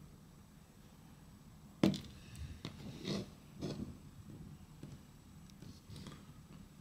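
Handling noises: one sharp knock about two seconds in, then a few soft scuffs, as a hand sets a baby horned frog down on the floor beside another.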